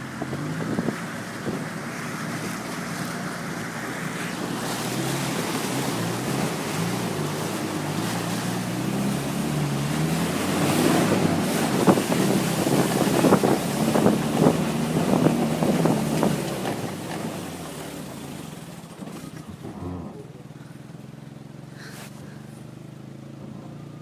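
Suzuki Vitara's engine running hard under load off-road, its pitch stepping up and down, with knocks and rattles from the body jolting over rough ground. It gets louder and busier midway, then eases to a quieter, steadier run near the end.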